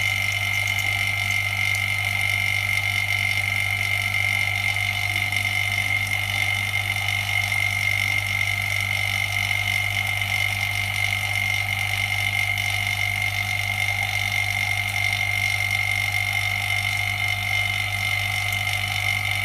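Screen-separating machine running steadily for an iPhone 6 Plus cracked-glass/LCD separation: an even low hum with a constant high whine, unchanging throughout.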